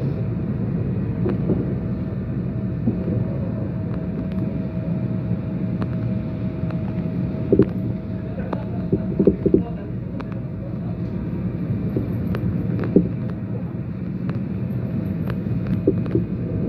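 Electric train running slowly through a tight curve, heard from inside the car: a steady rumble of wheels on rail with a steady hum. A handful of sharp knocks, several in quick succession about halfway through.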